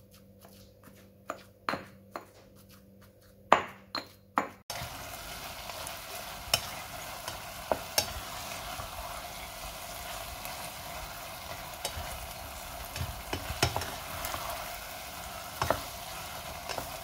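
Pestle knocking and grinding in a stone mortar, a few sharp strikes in the first few seconds. Then, from about five seconds in, a steady sizzle of food frying in a pan, with clinks of a utensil stirring it now and then.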